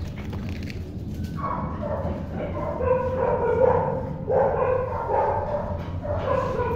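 Dogs whining: a series of long, drawn-out high calls of about a second each, one after another, starting about a second and a half in.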